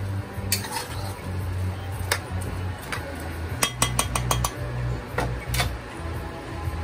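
A metal spoon clinking and scraping against a metal pot while stirring rice and diced vegetables, with a quick run of about six taps a little after the middle, over background music.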